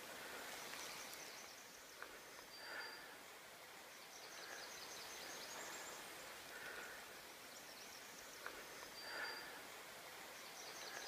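Faint woodland ambience: a small songbird repeats a high, rapid trill every few seconds, with a few softer mid-pitched call notes in between.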